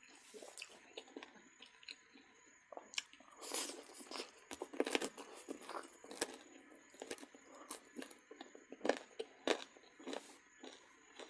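Close-miked chewing and crunching of duck in a mukbang: irregular crisp bites and chewing, busiest from about three to six seconds in.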